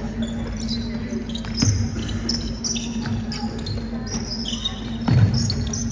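A basketball bouncing on an indoor court during play, with a loud thud about five seconds in. Sneakers make short high squeaks over a steady low hum.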